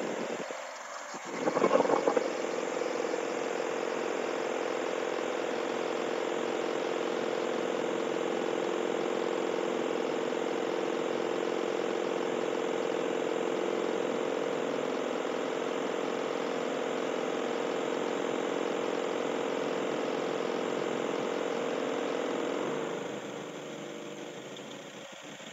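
1998 Mazda 626 engine idling roughly under accessory load, dragged down to about 500 RPM and shaking. There is a brief louder burst about two seconds in, and the overall sound drops markedly near the end.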